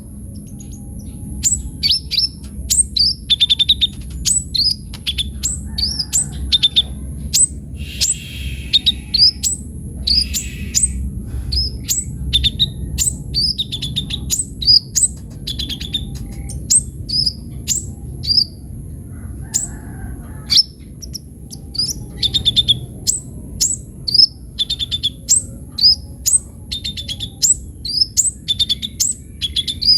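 A kolibri ninja sunbird singing energetically: a quick, unbroken run of sharp, high chirps that slide down in pitch, mixed with short trilled notes, about two a second.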